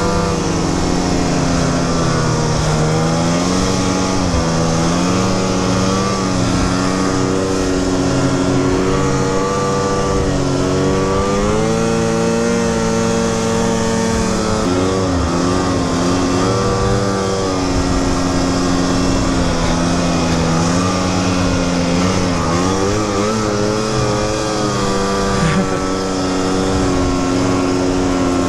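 Snowmobile engine running as the sled is ridden, its pitch rising and falling several times with the throttle.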